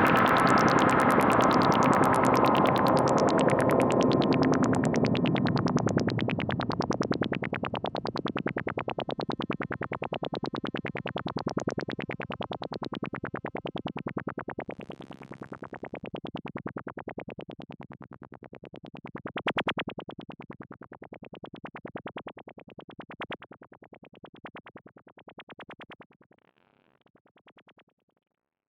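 Moog Dark Energy analogue synthesizer playing noise music. A dense, noisy texture thins into a repeating filter-swept pulse, roughly one sweep a second, that grows steadily fainter and dies away near the end.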